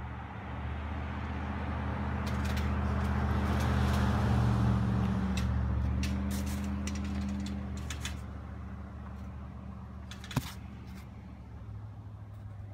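A fire department emergency vehicle's engine runs with a steady low drone as it passes. It grows louder to a peak about four seconds in, then fades as the vehicle drives away. A single sharp click comes about ten seconds in.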